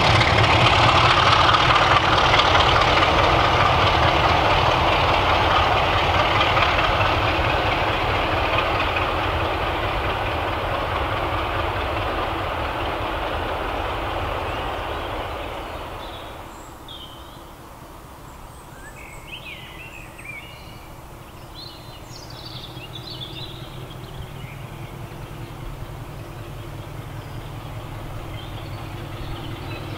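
Diesel locomotives running as a convoy along the line, their engines loud at first and fading steadily as they draw away over about fifteen seconds. Then birds chirp, and in the last few seconds another distant diesel engine grows slowly louder.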